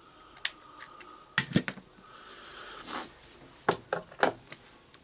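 Sharp clicks and clinks of metal parts as the clutch rings are pried off a Makita BDF440 drill's gear assembly with a screwdriver and laid down. A quick cluster of clicks comes about a second and a half in, and three more come near the end.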